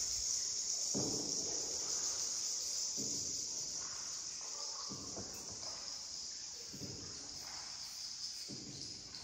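Steady high-pitched chorus of insects, with a soft low paddle stroke in the water about every two seconds.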